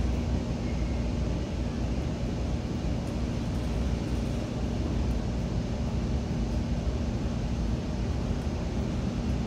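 Steady rolling rumble inside a Nippon Sharyo bi-level commuter coach under way, wheels running on the rails, with a steady hum.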